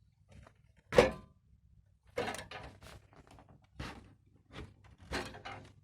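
Desktop PC case knocking and rattling: one sharp knock about a second in, then several short, irregular clattering rattles, the sign of a loose item inside the case.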